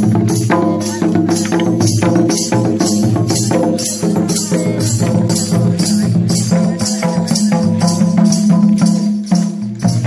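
Santali folk dance music: madal barrel drums beat a steady rhythm with jingling percussion over a sustained melody.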